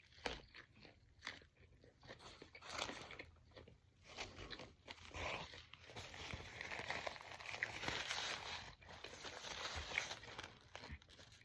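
A person biting into and chewing a grilled chicken wrap, with irregular bites and rustles.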